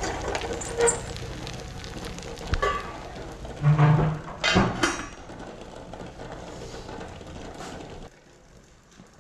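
Ragi appam batter sizzling in a hot cast-iron appam pan as it is swirled, then a steel lid clinks and clatters onto the pan about three to five seconds in. The sizzling drops away sharply about eight seconds in.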